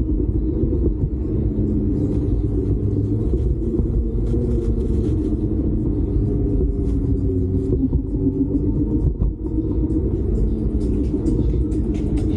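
Steady low rumble of wind and rolling noise on the microphone of a moving bicycle, with a few faint ticks over it.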